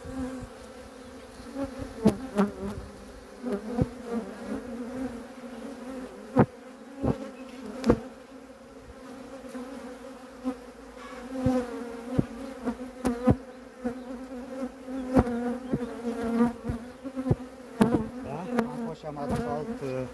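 Honeybees buzzing in a steady drone around an opened hive, the pitch rising and falling as single bees fly close past, with a scattering of short sharp clicks.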